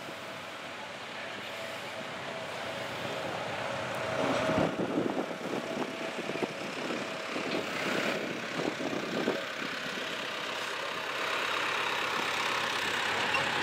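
GE diesel-electric freight locomotive approaching slowly under power, its engine running steadily and growing louder as it nears, with wheel and rail clatter.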